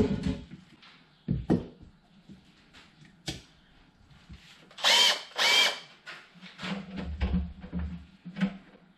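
Cordless drill with a step drill bit: the motor spins up briefly twice about halfway through, then the bit bears on the pannier panel and begins cutting the pin-lock hole, an uneven, lower sound that runs on to the end. A couple of handling knocks come earlier.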